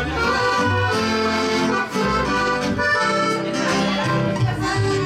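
Live band playing an instrumental passage, with accordion carrying the melody over guitars and a low bass line.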